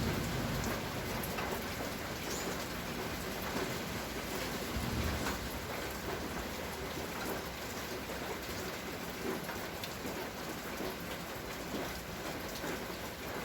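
Steady rain falling, with many separate drops ticking on a hard surface.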